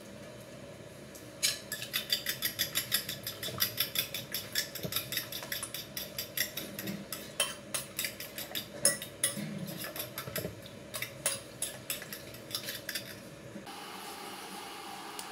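Metal utensil beating eggs in a glass bowl: a fast run of sharp clinks against the glass, several a second, starting about a second and a half in and stopping near the end.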